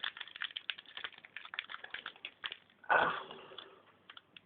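Foil booster-pack wrapper crinkling and crackling in rapid small clicks as hands pull at it, trying to tear the sealed pack open. A single louder thump comes about three seconds in.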